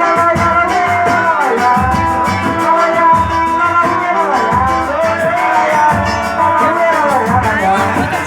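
Music with a steady beat and a lead melody that slides and wavers in pitch.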